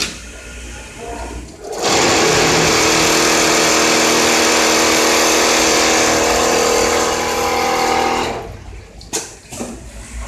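Richpeace automatic template sewing machine running a steady stitching cycle. The machine starts abruptly about two seconds in, runs at an even speed with a steady hum, and stops about eight seconds in.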